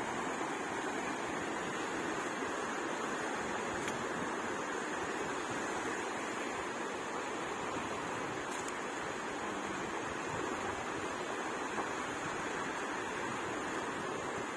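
Steady wash of small waves breaking and running up in shallow surf.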